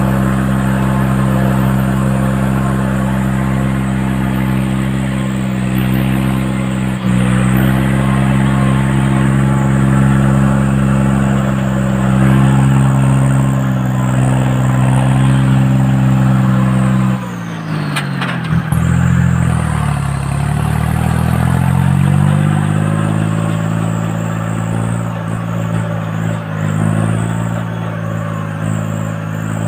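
Tractor engine running steadily. About two-thirds of the way through, its revs drop sharply, then climb back up over a few seconds.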